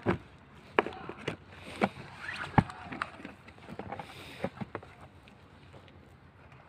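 A cardboard helmet box being handled and opened by hand: a string of sharp knocks, taps and scrapes of cardboard, the loudest about two and a half seconds in, growing quieter over the last couple of seconds.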